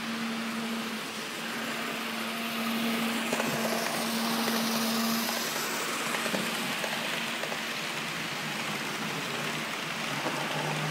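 HAG HO-scale model trains running on layout track: a steady electric-motor hum under the rush and light ticking of wheels on the rails, swelling as a train of coaches passes a few seconds in.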